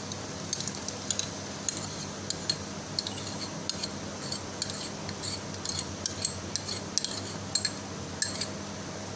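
A metal spoon clinking and scraping against a bowl and a metal cooking pot in quick irregular clicks as yogurt is spooned into a thick onion-tomato gravy and stirred in, with light sizzling underneath.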